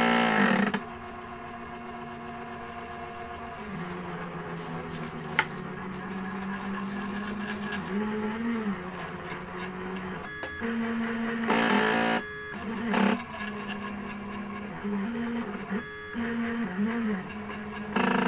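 Goofoo Cube 3D printer running, its stepper motors whining as the print head moves. The pitch rises and falls with each move. There are louder, busier stretches right at the start, about twelve seconds in and near the end.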